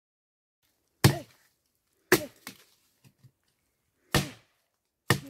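Machete chopping into the thin trunk of a standing tree. Four sharp strokes land about a second apart, starting about a second in, with a couple of lighter knocks between them.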